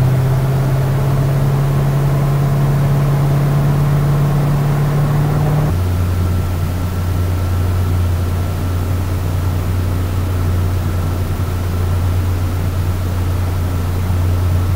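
A boat engine running steadily under way, a low even drone. About six seconds in the drone drops suddenly to a lower pitch and holds there.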